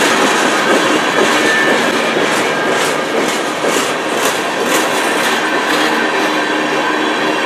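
Freight cars (covered hoppers and boxcars) of a passing train rolling by at speed: a steady rumble and hiss of steel wheels on rail. Between about two and five seconds in there is a rhythmic run of clicks, two or three a second, as the wheels cross rail joints.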